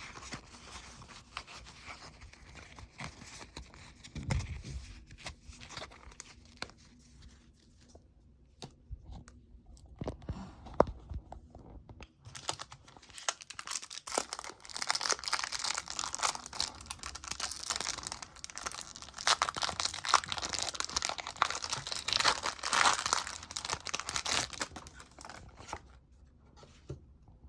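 Pokémon booster pack's foil wrapper being crinkled and torn open, with a long stretch of dense crinkling and tearing from about halfway through until near the end; a few light knocks of handling come before it.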